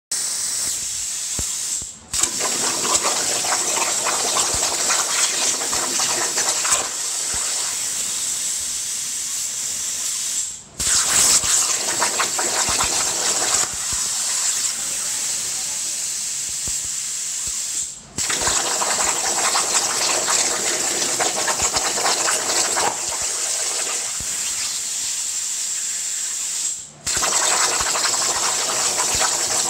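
CNC plasma cutting torch cutting steel plate: a loud, steady hiss of the arc and air. It cuts out sharply four times, each time for a fraction of a second, as the torch finishes one cut and starts the next.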